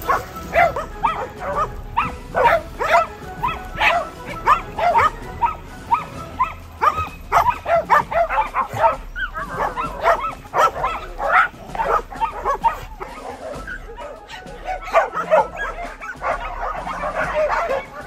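A pack of many dogs barking at once: rapid, overlapping barks and yips, thinning out briefly about two-thirds of the way through before picking up again.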